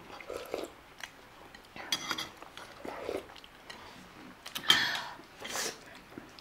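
Eating at a table of momo dumplings: scattered light clicks of utensils on dishes, with one sharp, loud click about three-quarters of the way in, followed by a short breathy noise.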